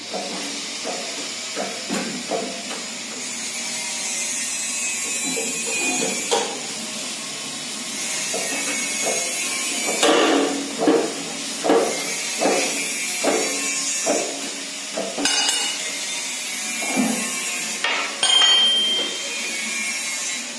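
Metal knocks and clanks from a hydraulic press pushing the crank pin out of a motorcycle crankshaft half. Stretches of hiss run under it, a regular run of knocks a little over one a second comes midway, and a sharp clank comes near the end.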